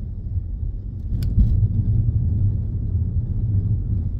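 Steady low rumble of a car heard from inside the cabin, engine and road noise, with a single sharp click about a second in. No beeping is heard.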